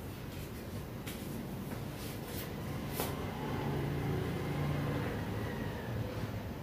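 Steady low mechanical hum, growing slightly louder, with a few faint clicks in the first three seconds.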